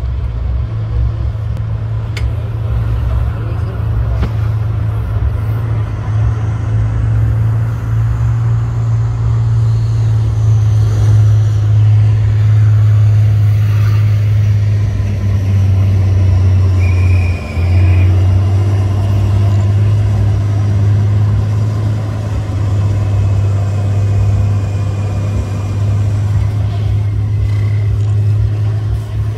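Off-road trial truck's diesel engine running with a steady low drone as it works over a steep dirt slope, dipping briefly about halfway through.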